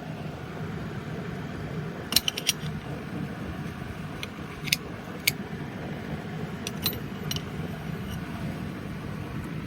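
Steady hum of an electric fan, with a handful of sharp metallic clinks of tools and metal parts being handled: three in quick succession about two seconds in, two more around five seconds, and a few more near seven seconds.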